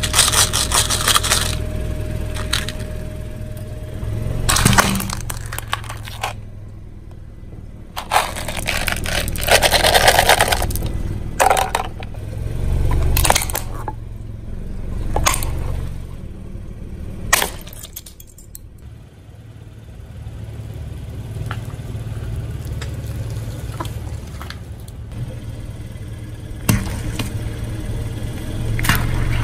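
A car tyre rolling slowly over a series of objects, crushing plastic candy containers of jelly beans, a plastic toy and oranges in a string of separate cracking, crackling and squashing bursts. A steady low hum of the car's idling engine runs underneath.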